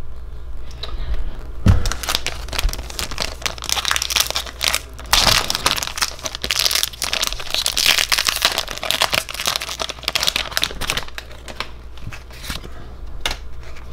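A foil Pokémon card booster pack wrapper crinkling and tearing as it is pulled open by hand, in a dense run of crackles that eases off near the end.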